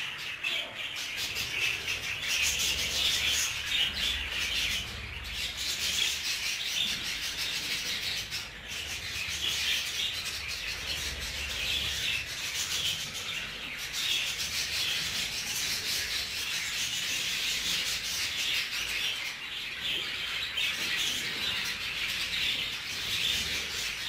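A flock of budgerigars chattering and warbling all at once, a dense, unbroken twitter of many birds.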